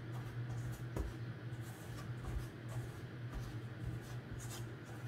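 Silicone spatula stirring and scraping a flour and melted-butter mixture around a stainless steel mixing bowl, in irregular strokes with a light knock against the bowl about a second in. A steady low hum runs underneath.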